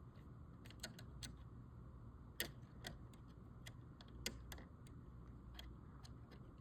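Faint, scattered small clicks and taps, about a dozen over several seconds, the loudest about two and a half seconds in: a paper clip poking at and pressing the small reset button inside a Keurig K-Supreme coffee maker's plastic housing.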